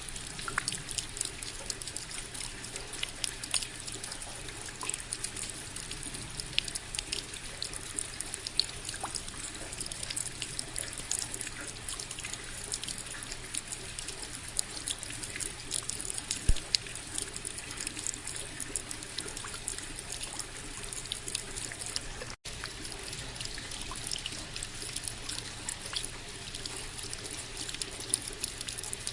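Steady rain falling, with many small sharp drop hits over an even hiss. The sound cuts out for an instant about three-quarters of the way through.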